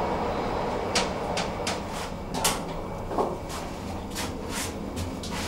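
Inclined elevator's glass sliding doors closing: a string of sharp clicks and clatters from the doors and their mechanism over about four seconds, with a brief rising whine midway, over a steady low hum.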